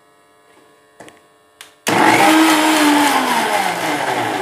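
Two light clicks, then about two seconds in an electric mixer grinder switches on and runs loud, blending a thick paste of mashed banana, sugar and a little water. The motor's pitch falls steadily as it runs.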